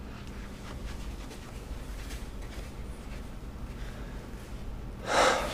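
Office room tone with a steady low hum and faint soft rustles. Near the end comes a brief loud swish, an office door being opened.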